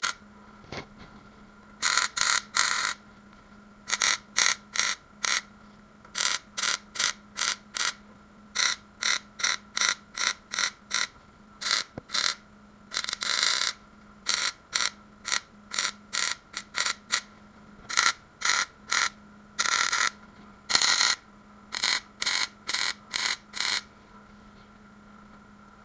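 MIG welder laying a string of short stitch welds on thin sheet steel: about thirty brief bursts, each well under a second, with half-second pauses between them and a faint steady hum underneath.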